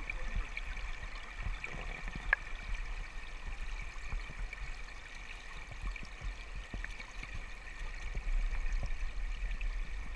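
Shallow river water flowing steadily over a gravel and cobble bed, with a few faint clicks, one about two seconds in.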